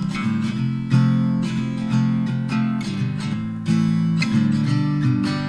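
Background music: an acoustic guitar track of plucked and strummed chords in a steady rhythm.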